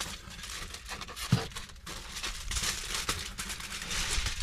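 Sheet of aluminum foil crinkling as it is handled and opened out, with one dull thump about a second in.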